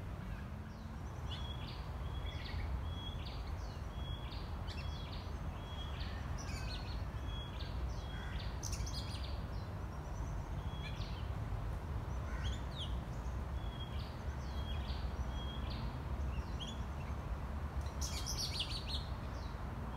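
Young Oriental magpie-robin practising its song: short high whistled notes and chirps repeated about twice a second, with a denser jumble of notes near the end. A steady low rumble lies underneath.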